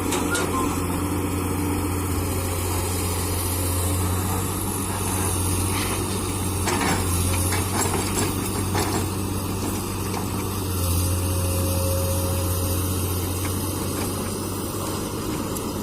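Komatsu PC200 excavator's diesel engine running steadily, with a few short knocks about halfway through.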